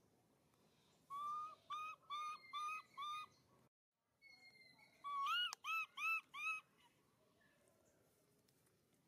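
An animal's high whistled calls in two bursts. Each burst opens with a falling note and runs into four or five quick arched notes, and the second burst is louder. Between the bursts comes a moment of dead silence.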